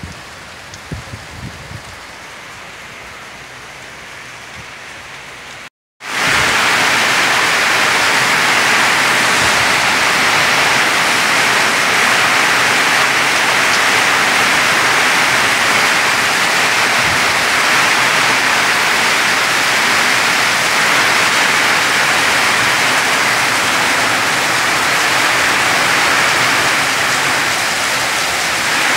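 Heavy storm rain with strong wind: a loud, steady rushing hiss that comes in suddenly about six seconds in, after a brief dropout. Before that there is a quieter wash of rain with a few light knocks.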